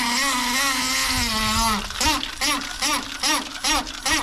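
Brass hose tap quacking like a duck as water runs through it: a loud buzzing drone whose pitch wavers about three times a second, then drops a little and breaks into rapid stuttering pulses, about four a second, from about halfway through. The plumber puts it down to a squashed-out jumper washer stuck tight in the tap body, so the water pushing up keeps slamming the valve back onto its seat.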